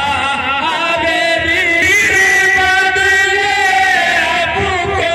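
A voice chanting a lament in long, held notes that waver up and down, in the manner of a Muharram noha.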